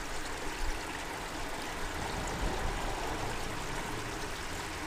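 A small creek trickling, a steady even rush of water.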